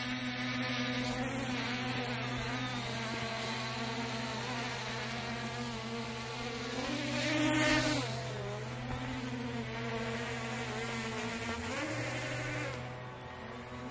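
ZMR250 carbon-frame racing quadcopter's motors and propellers whining as it hovers and flies, the pitch wavering with throttle. It rises and swells louder about seven seconds in, then drops back after about eight seconds.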